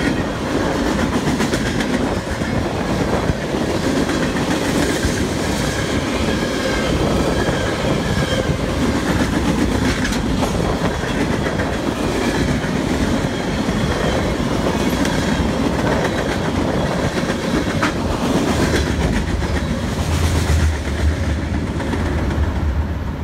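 Freight train cars rolling past close by: a steady loud rumble with the clickety-clack of wheels over the rail joints.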